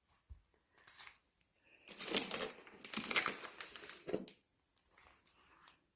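Plastic food packaging crinkling as it is handled, mostly between about two and four seconds in, after a few faint ticks.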